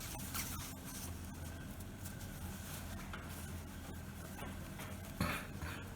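Brief rustles and scrapes of fabric and a zipper being handled, clearest twice, over a steady low hum.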